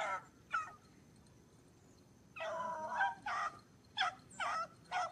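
Beagles baying on a rabbit's trail: two short yelps, a pause, then a longer run of overlapping bays from about halfway through.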